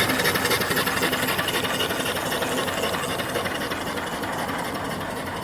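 Small 3–4 horsepower steam engine running steadily on its boiler: a fast, even mechanical beat that grows slightly fainter toward the end.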